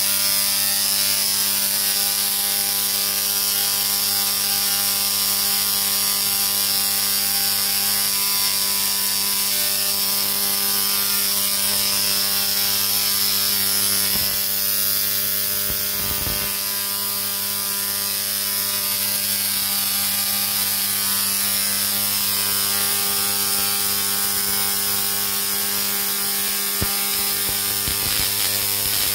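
A 350 W spark-gap Tesla coil running, its arcs from the toroid making a loud, steady buzz with a fixed pitch as the spark gap fires at a constant rate.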